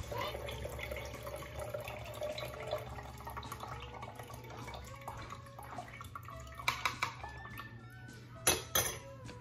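Watery buttermilk rinse trickling through a small plastic strainer into a glass jar, with two short clusters of sharp clinks and taps about seven and about eight and a half seconds in.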